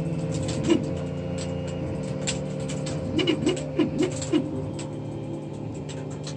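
Creality CR-10S 3D printer at work: the stepper motors whine at steady pitches that shift as the moves change, over a steady fan hum, with scattered ticks. About three seconds in comes a run of five short swooping chirps from quick stepper moves.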